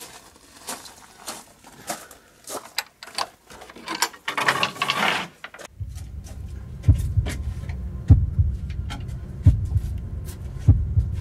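Irregular crunching footsteps on gravel with a brief scraping rush about four seconds in, then a low droning rumble with a heavy heartbeat-like thud about every second and a quarter: a horror-film heartbeat sound effect.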